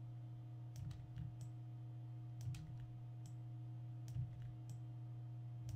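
Computer keyboard keys clicking, a scattered handful of irregular keystrokes over a steady low hum.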